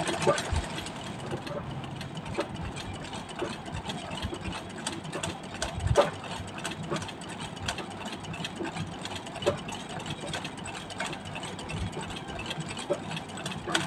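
Treadle-driven straight-stitch sewing machine running steadily through free-motion embroidery, its needle mechanism clattering in fine, rapid ticks, with a few louder clicks partway through.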